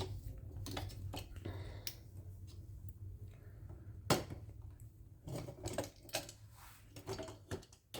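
Small clicks and taps of a sewing machine's bobbin-winder parts being handled, with one sharper click about four seconds in and a few quick clusters of clicks near the end, over a faint low hum.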